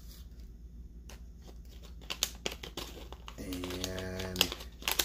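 Small plastic parts and their packaging handled by hand: crinkling and quick sharp clicks, starting about two seconds in and growing busier. A man briefly hums a steady 'mmm' about three and a half seconds in.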